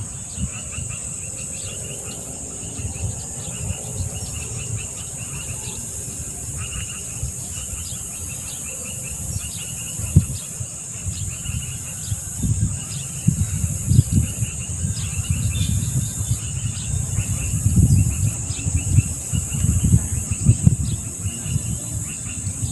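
A steady chorus of insects, mostly a high continuous buzz with a row of repeated chirps under it. From about ten seconds in, loud low rumbles and bumps come and go over it.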